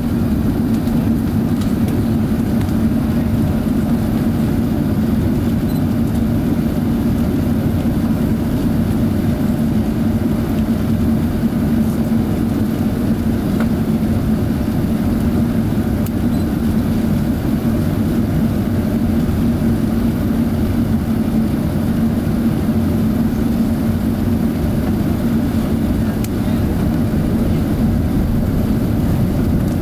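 Steady cabin noise inside an Airbus A380-800 descending on approach: an even rush of airflow and engines, with a steady low hum running under it.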